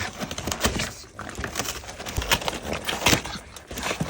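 A pug pawing and nosing at a box: irregular scuffs, knocks and rustles.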